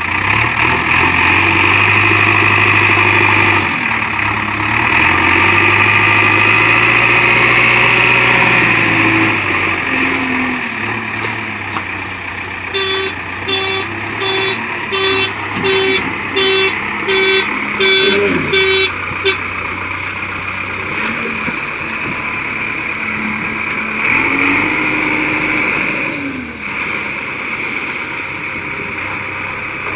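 JCB 3DX backhoe loader's diesel engine running and revving up and down several times as the machine works. In the middle comes a run of about nine evenly spaced beeps, roughly one a second.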